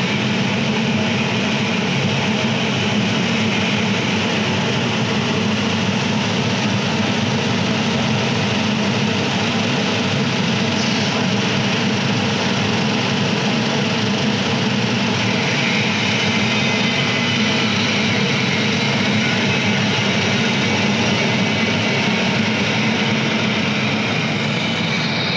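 Dahan stainless-steel rotary vibrating screen running: a steady, loud hum and buzz from its vibration motor and shaking sieve frame. The higher part of the buzz thins slightly about two-thirds of the way through.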